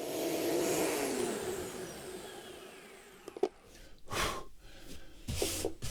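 Thickness planer's motor winding down after being switched off, its whine falling in pitch and fading over about three seconds. A click and a few short rubbing sounds follow in the last couple of seconds.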